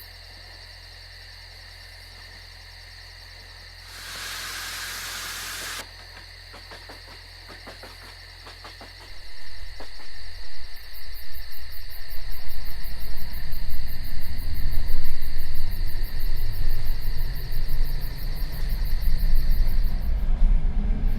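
A burst of air hiss lasting about two seconds, then a few clicks. After that the diesel engine of a DR1A diesel multiple unit comes up to power: a low rumble that grows louder and rises slowly in pitch as the train gets under way.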